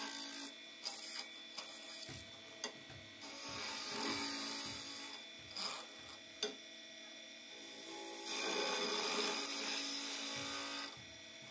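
Wood lathe running while a skew chisel cuts a turning wooden spindle: a scraping hiss from the cut that swells and fades, loudest near the end, with a few sharp clicks.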